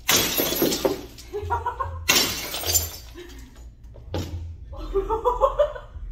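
A long-handled pick smashing into an old CRT television: two heavy crashes with glass and plastic shattering, one at the start and one about two seconds later, then a lighter knock a couple of seconds after that.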